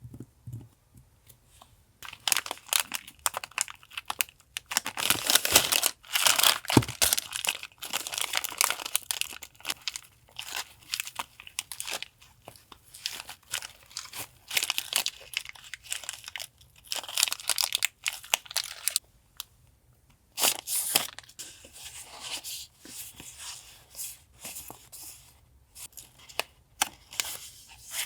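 Packaging being handled and opened up close: irregular crinkling and rustling with tearing sounds, starting about two seconds in and loudest around the middle.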